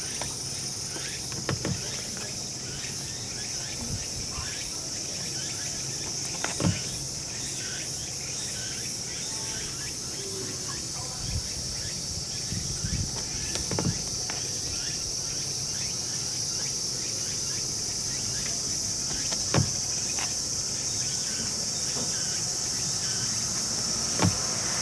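Insects chirring steadily in one continuous high-pitched drone, with a few short sharp clicks or knocks scattered through it.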